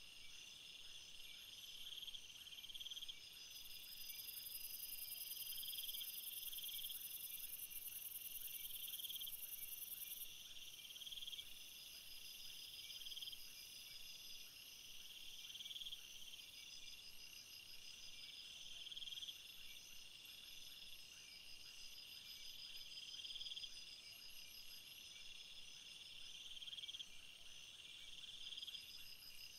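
Faint chorus of crickets chirping: a steady pulsing trill, with a higher buzz joining for several seconds a few seconds in.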